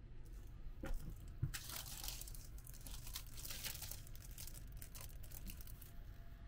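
Clear plastic bag crinkling and rustling as it is handled close up, with a couple of light knocks about a second in.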